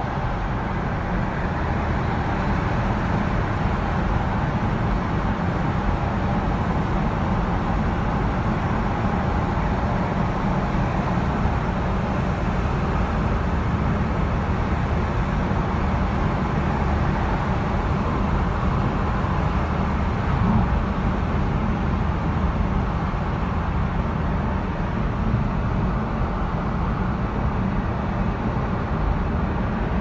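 Steady car road noise, heard from inside the cabin while driving through a road tunnel: a constant low rumble of tyres and engine with a hiss above it.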